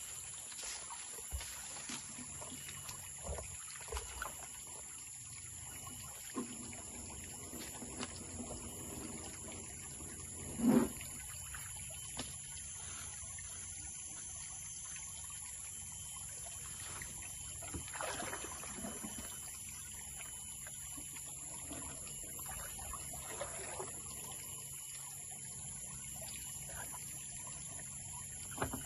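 Shallow creek water splashing and trickling as a gold pan is dipped and scooped along the creek bed, with scattered small knocks and one louder thump about ten seconds in.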